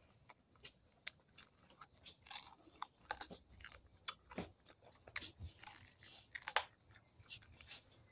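A person biting and chewing crispy fried pork tripe close to the microphone: irregular crunches and wet chewing smacks, several a second.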